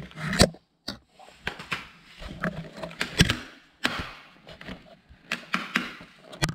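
A plastic squeegee scraping and tapping as smoked vinyl tint film is pressed onto a car's tail light, with the film rustling under the hands. The sound comes as irregular scrapes and sharp clicks.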